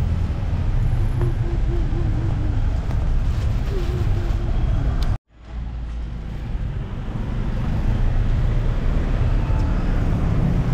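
Steady city street traffic noise, heaviest in the low end, with cars going by. The sound cuts out completely for an instant about halfway through, then returns.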